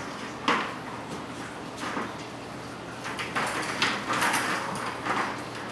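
A plastic ball rolling and rattling around a Bergan Turbo Track cat toy as cats bat it: two short rushes, then a longer run of rolling and knocks past the middle.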